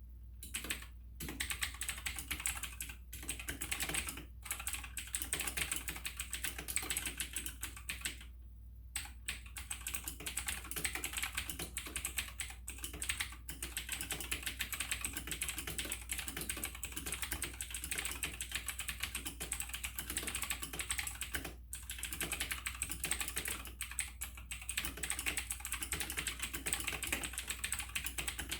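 Fast continuous typing on an AUKEY tenkeyless mechanical keyboard with clicky Outemu blue switches: a dense run of sharp key clicks, with a short pause about eight and a half seconds in.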